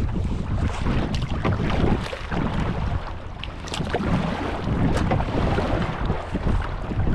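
Strong wind buffeting the microphone: a loud, gusting rumble that eases briefly a few seconds in, with a few faint ticks over it.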